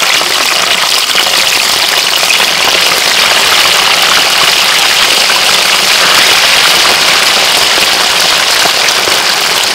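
Pieces of fish deep-frying in a large wok of hot oil: a loud, steady sizzle of bubbling oil.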